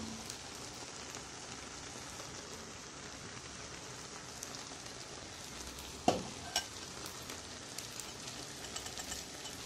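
Hot melted butter sizzling as it is poured from a small pot over a pan of cooked bulgur pilaf: a steady faint sizzle, with a sharp metal clink about six seconds in and a lighter one just after.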